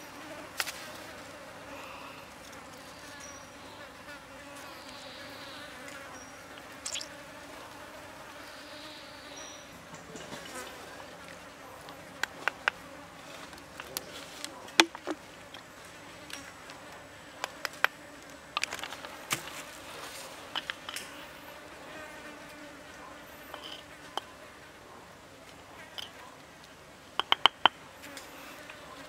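Flying insects buzzing steadily with a wavering hum. Scattered sharp clicks and taps sound over it, loudest in a quick run of several near the end.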